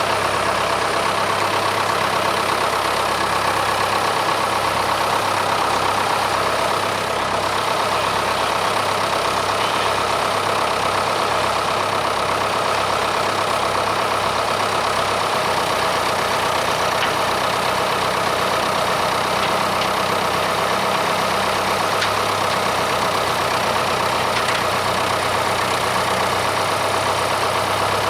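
Case 580K backhoe's diesel engine running steadily. Its tone shifts slightly about 7 seconds and again about 15 seconds in.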